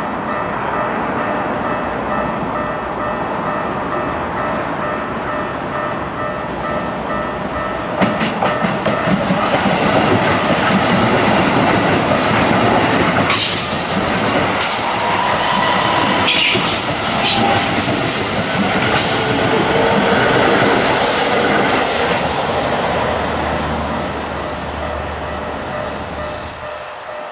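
Level-crossing warning bell ringing in a steady repeating pattern. About eight seconds in, a Keisei 3000 series electric train passes over the crossing at speed, its wheels clattering over the rail joints for over ten seconds. The sound then fades away.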